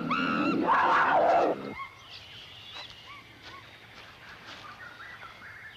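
A loud, rough cry for about a second and a half, then quiet jungle ambience with scattered short bird chirps.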